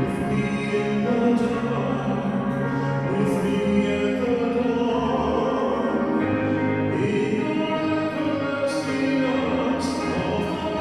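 Music: a worship song being sung, held notes moving from pitch to pitch over a steady sustained accompaniment.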